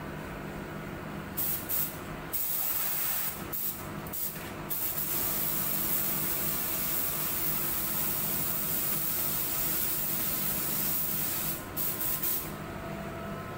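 Compressed-air paint spray gun hissing as white automotive paint is sprayed onto a car body: short on-off bursts at first, then one long continuous pass, a few quick bursts, and it stops shortly before the end. A steady low hum runs underneath.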